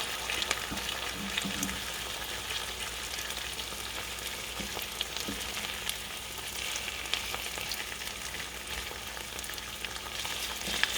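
Potatoes and vegetables frying in oil in a pan, a steady sizzle with small crackles as the potatoes brown.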